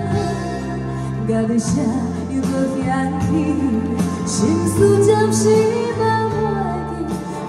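Music: a Taiwanese Hokkien pop song, with a melody line over a full backing track.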